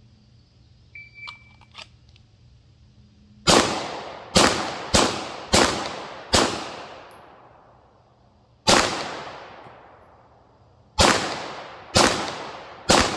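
A short shot-timer beep about a second in, then 9mm pistol shots from a PSA Dagger, each with a trailing echo. Five come quickly, about two-thirds of a second apart, fired two-handed. After a pause of about two seconds, four slower one-handed shots follow about a second apart.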